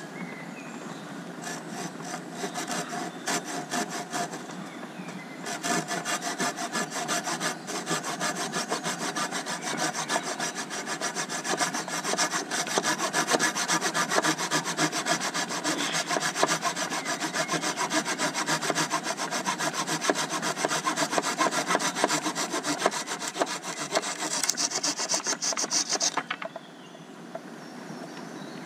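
Silky Pocketboy folding saw cutting through a thin wooden pole with quick back-and-forth strokes. The strokes start light and become steady and strong about five seconds in, then stop shortly before the end.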